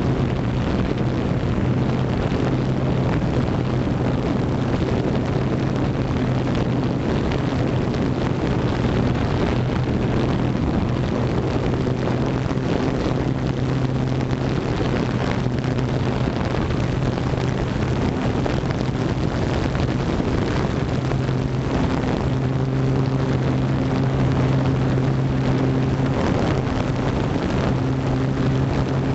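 FPV drone's electric motors and propellers running steadily: a constant hum with overtones over a rushing hiss of air on the microphone.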